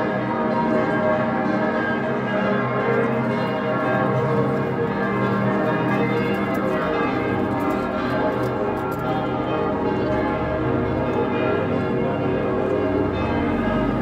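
Church bells of several churches ringing at once: many overlapping bell tones of different pitches in a steady, continuous peal.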